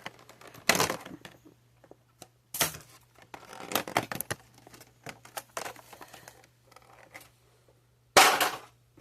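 Plastic packaging crinkling and cardboard rustling as a card collection box is opened by hand, in irregular bursts, the loudest near the end. A faint steady low hum runs underneath.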